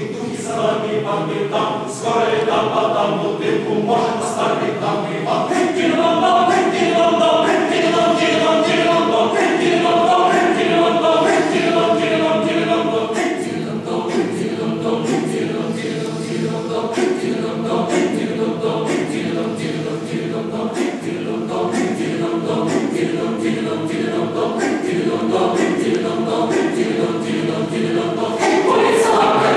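Mixed choir of men's and women's voices singing, the chords held and swelling, growing louder near the end.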